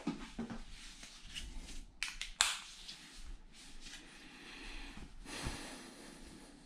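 Off-screen handling noise: soft rustling and shuffling, with a couple of sharp clicks a little over two seconds in and a short hiss of rustle around five and a half seconds.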